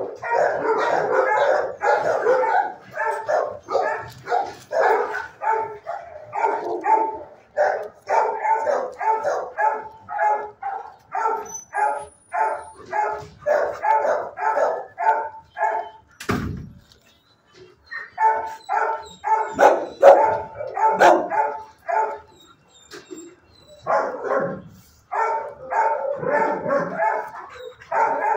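Shelter dogs in the kennel block barking steadily, about three barks a second, with two short pauses. A single loud bang comes about sixteen seconds in.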